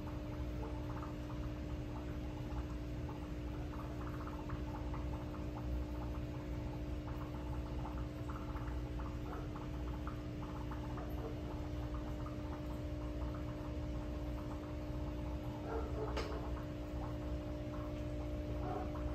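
Aquarium air pump and filter running: a steady hum with small irregular bubbling and trickling of water. A single brief click near the end.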